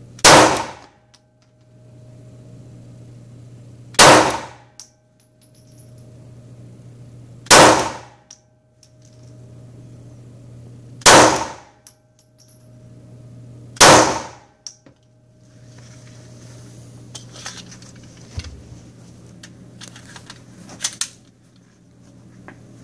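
Five loud, sharp metallic bangs, each ringing out briefly, spaced about three and a half seconds apart, followed by a scatter of much fainter clicks and ticks.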